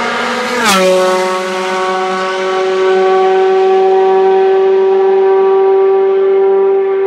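Ferrari F430 GT2/GTC race car's 4-litre V8 at full throttle. Its note drops suddenly in pitch with a brief crackle under a second in, then holds one steady, high, loud note.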